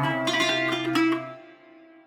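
Sampled Middle Eastern plucked string instrument playing a quick run of notes, stopping about a second and a half in and ringing out.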